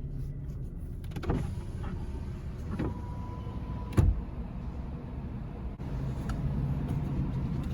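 Car moving slowly through a parking garage, heard from inside the cabin: a steady low engine and road rumble with a few knocks. A brief steady whine comes just before the loudest event, a sharp thump about four seconds in.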